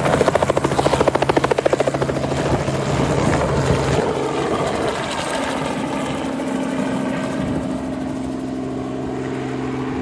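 Small two-bladed helicopter lifting off and flying away: a fast rotor chop, loudest in the first two or three seconds, gives way to a steadier engine-and-rotor hum that slowly fades.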